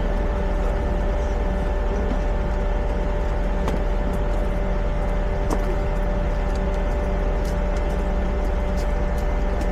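Passenger train running, heard from inside the carriage: a steady low rumble with a constant hum over it and a few faint ticks.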